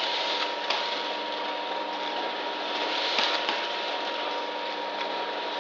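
Automatic vertical sachet packing machine running as it fills and seals sugar sachets: a steady machine hum with a constant high whine, and a sharp clack twice, about two and a half seconds apart.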